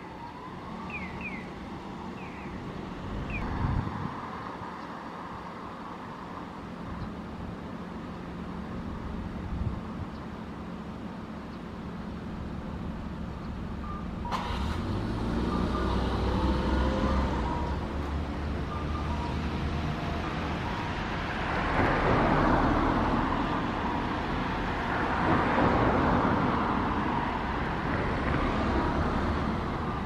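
Urban road traffic: a steady rumble of cars with a few short high chirps in the first couple of seconds. It gets abruptly louder about halfway through, and two vehicles pass louder near the end.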